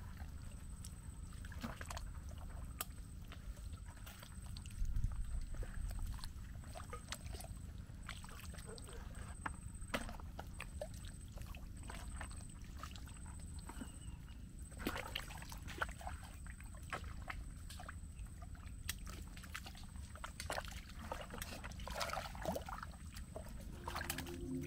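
Low wind rumble with scattered small clicks and wet squelches as a thin metal crab hook probes and digs into mud crab burrows on a tidal mudflat. A faint steady high whine runs underneath.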